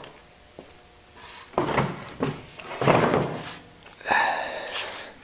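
Wooden slatted futon frame being folded down flat: a few knocks and scrapes of wood on wood, the loudest about three seconds in.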